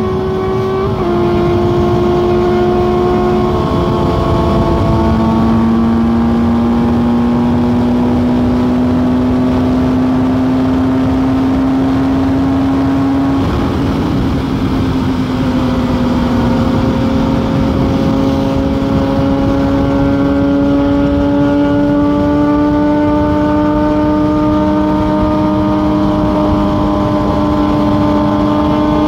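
Sport motorcycle's inline-four engine pulling hard at speed, its pitch climbing steadily and dropping back at upshifts about a second in, about four seconds in and again around the middle, under heavy wind and road noise.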